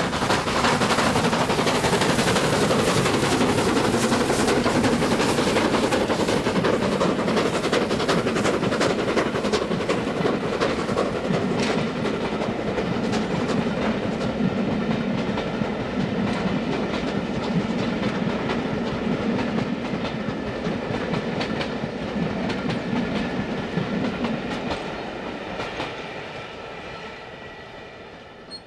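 Stanier 8F 2-8-0 steam locomotive working hard up a steep climb with a heavy passenger train: a steady pounding exhaust and the clatter of the coaches' wheels rolling past. It fades away over the last few seconds as the train draws off.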